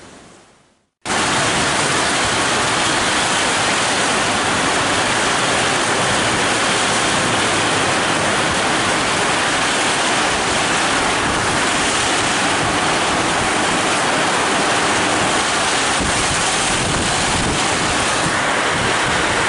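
Heavy rain pouring down, a loud steady downpour that starts abruptly about a second in.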